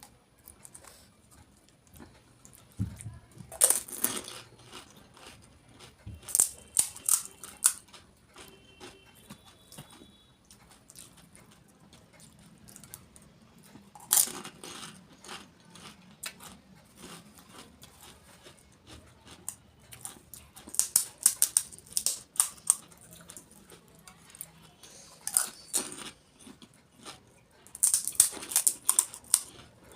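Eating crisp golgappa (pani puri) up close: about six bursts of crackling crunches as the hollow shells are bitten, with quieter chewing between them.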